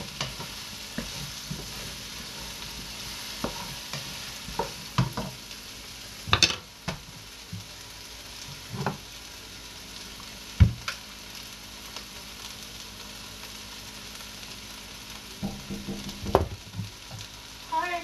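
Leeks, potatoes and cauliflower sizzling steadily in a pot on the stove, with a few sharp knocks and clatters now and then.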